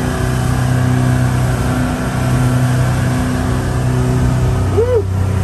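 Sportfishing boat's engine running steadily at cruising speed, with the rush of wind and churning wake water.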